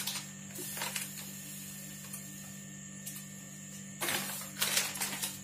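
Coarse semolina poured from a plastic packet into a steel cup: packet crinkling and grains running into the cup in short bursts, the loudest pair about four to five seconds in, over a steady low hum.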